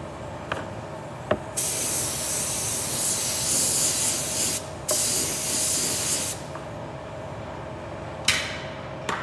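Air-fed spray gun spraying clear coat onto a headlight lens: a hiss of about three seconds, a brief break, then another of about a second and a half, and a short puff near the end. Two sharp clicks come just before the spraying starts.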